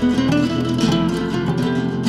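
Background music: acoustic guitar, strummed and plucked in a Spanish flamenco style.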